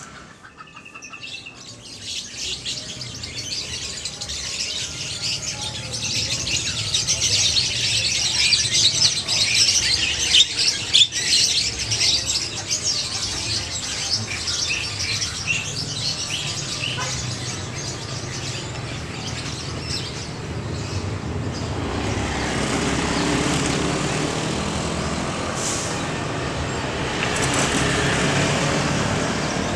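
Dense, irregular chirping of small birds over a steady low hum of street traffic. The chirping thins out about two-thirds of the way through, and passing motorcycle engines grow louder near the end.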